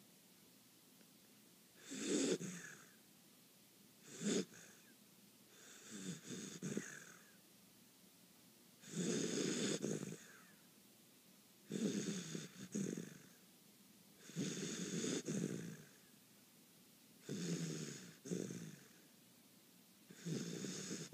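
Snoring in deep sleep: a run of about eight snores, one every two to three seconds, each a low rasp with a breathy hiss, with quiet breathing between.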